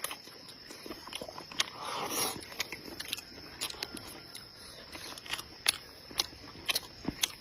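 Close-miked chewing of a mouthful of rice and soft fermented bean curd, with wet lip smacks and mouth clicks at irregular intervals and a soft rushing sound about two seconds in.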